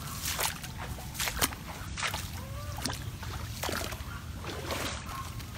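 Floodwater sloshing and splashing in irregular bursts as a person wades through it at the edge of a submerged ditch.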